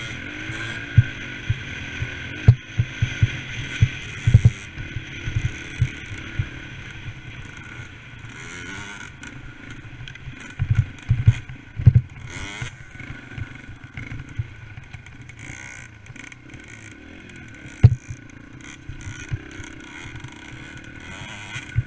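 Dirt bike engine running under throttle while ridden over rough ground, its pitch rising and falling at times. Irregular low thuds from bumps and wind buffeting hit the mounted camera's microphone.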